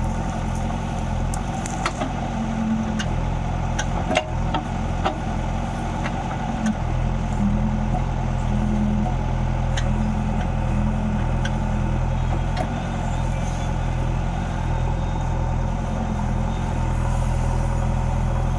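Heavy diesel engine running steadily, with a few sharp clanks in the first five seconds; its note shifts about seven seconds in.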